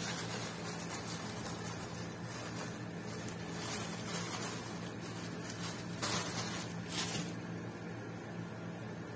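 Room tone with a steady low hum, broken by two short faint brushing sounds about six and seven seconds in.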